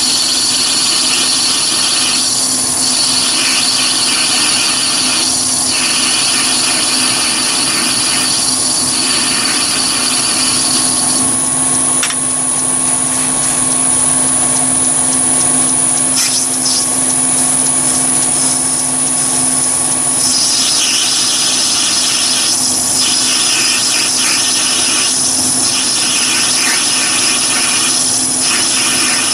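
Chinese mini lathe running with a steady motor whine while a carbide grooving tool cuts into a spinning brass bar. The cutting hiss grows louder for several seconds in the middle.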